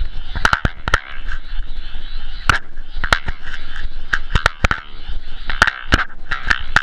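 A camera whirled around on a string: air rushing and fluttering over its microphone in pulses, with irregular sharp clicks and knocks from the camera rattling on its string.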